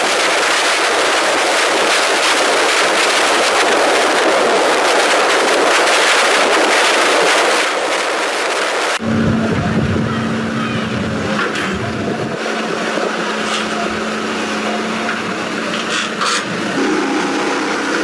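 A harsh rushing noise that cuts off suddenly about nine seconds in, giving way to a heavy engine running with a steady hum and a few faint clicks.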